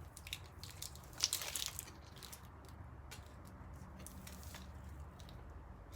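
Faint rustling and small clicks of a wiring harness and its plastic connectors being handled, with a louder crinkling stretch about a second in, over a low steady hum.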